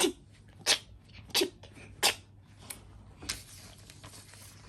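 A child making a string of short breathy 'tch' sounds with his mouth, about one every two-thirds of a second, six in all, growing softer after the first few.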